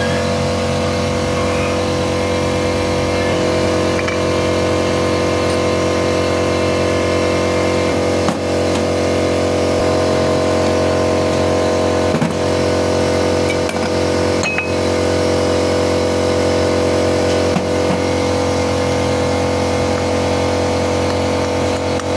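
Car engine running steadily with an even mechanical whine, the pitch holding unchanged throughout, and a few faint clicks.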